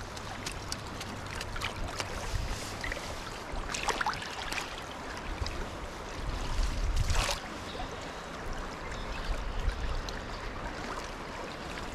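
Shallow river current flowing steadily, with two brief splashes about four and seven seconds in as a landing net holding a trout is dipped into the water.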